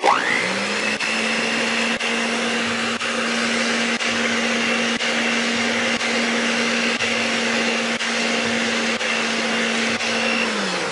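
Electric stand mixer beating a liquid mix of cream, condensed milk and milk in a stainless steel bowl. The motor spins up with a rising whine, runs at a steady pitch, and winds down shortly before the end.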